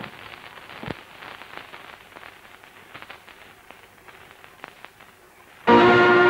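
Hiss and crackle of an old film soundtrack with scattered clicks and pops. Near the end, a loud sustained musical chord begins the song's accompaniment.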